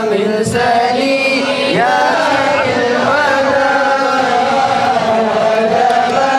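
A crowd of men chanting a devotional chant together: many overlapping voices held in long, steady notes, with no break.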